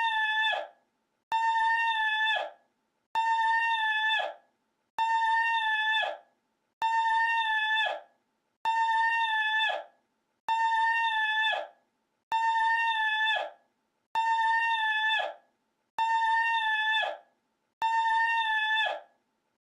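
A short, high, held vocal cry, the same clip looped over and over: about eleven repeats, roughly one every two seconds. Each begins abruptly with a click, holds one steady pitch for just over a second, then drops in pitch and fades out.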